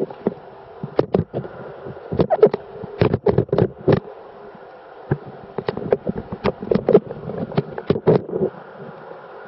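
Irregular echoing splashes and knocks, like footsteps wading through the shallow stream on the floor of a limestone cave, over a steady rush of running water. The strokes come in uneven clusters and stop about a second before the end.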